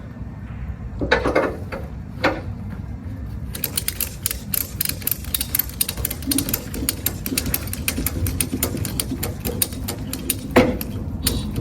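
Ratchet strap being tightened by hand: a couple of clanks, then a long run of rapid ratchet clicks, with one louder clank near the end.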